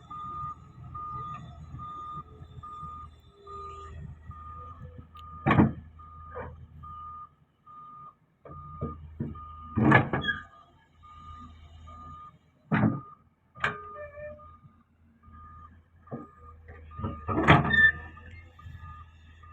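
A wheel loader's reversing alarm beeps steadily about two to three times a second over a low engine rumble. Several loud sharp knocks break in, the loudest about halfway through and near the end.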